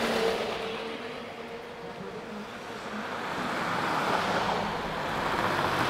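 Road vehicles passing close by: a rushing noise that fades about two seconds in, then swells again toward the end.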